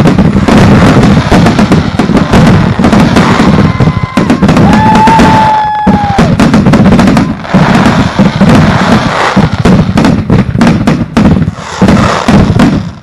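Consumer firework cakes firing close by in rapid succession: a loud, continuous barrage of launch thumps, bursting bangs and crackle. A steady whistle rises over the barrage for about two seconds, around five seconds in.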